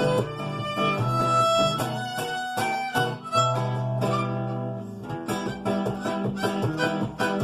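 Instrumental music: plucked acoustic guitar with a bowed violin playing held melody notes.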